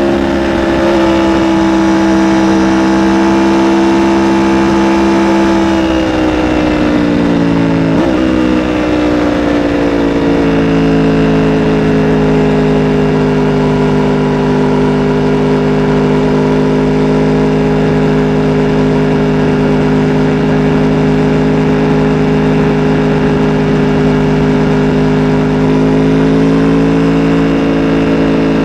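2017 Aprilia RSV4 RR's V4 engine running loud on its stock exhaust: held at a steady raised speed for several seconds, then dropping back with a brief blip and settling to a steady lower speed, rising slightly near the end.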